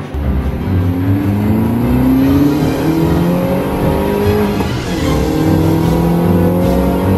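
Mini Cooper engines accelerating. The engine note rises twice in pitch through a gear change, then holds steady, with music underneath.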